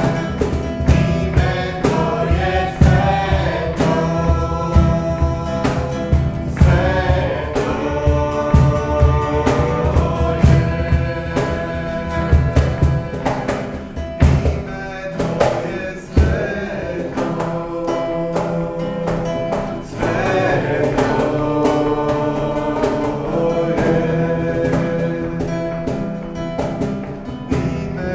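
Worship song: a strummed acoustic guitar with two men and a woman singing together.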